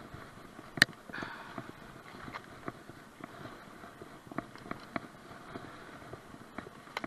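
Scott Spark mountain bike rattling over a rough woodland track: irregular sharp clicks and knocks from the bike jolting over bumps, the loudest about a second in, over a low rush of tyre noise.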